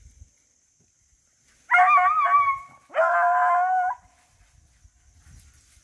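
Beagle hound baying as it runs a rabbit's scent: two long drawn-out howls of about a second each, the first wavering in pitch, the second held steady.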